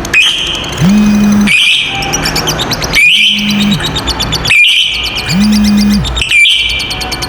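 Lovebird's 'ngekek' song: long runs of rapid, high chattering, each starting with a rising call, repeating about every one and a half seconds. A short low steady tone sounds in each cycle.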